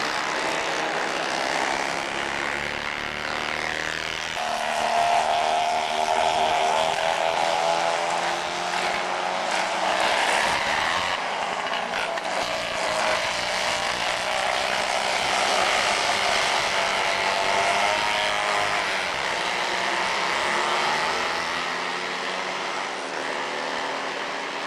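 Engines of small historic single-seater racing cars running on the circuit, their pitch rising and falling as the cars accelerate, lift and pass, louder from about four seconds in.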